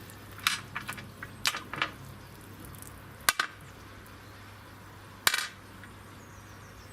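Sharp hard clicks and knocks, about six spread over several seconds, from a pressure washer lance and its nozzles being handled while the machine is not spraying. A faint steady low hum runs underneath.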